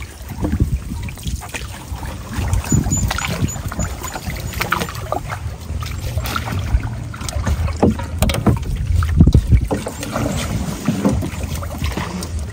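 Water splashing and sloshing with scattered irregular knocks, over a rumble of wind buffeting the microphone.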